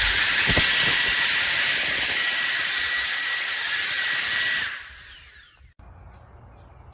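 Cordless electric air duster's high-speed fan motor running, with a loud rush of air and a steady high whine. About four and a half seconds in it is switched off, and the whine falls as the fan spins down.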